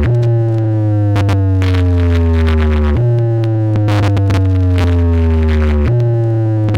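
Loud synthesized tone over a sound system during a sound check: a bass-heavy tone that slides slowly downward and jumps back up about every three seconds, twice in this stretch, with sharp clicks scattered through.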